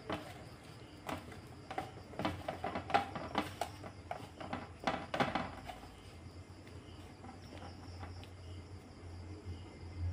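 A hand mixing flour, oil and water in a stainless steel bowl to start a dough: soft rubbing and scraping with scattered light clicks and taps against the steel, busiest in the first half and quieter after about five seconds.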